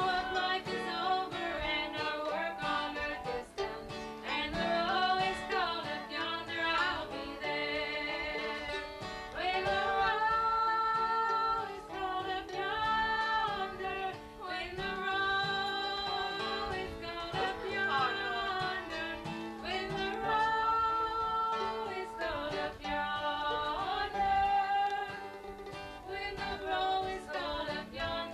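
Live acoustic string music: an acoustic guitar and a second plucked string instrument played together, with a voice singing long held notes over them.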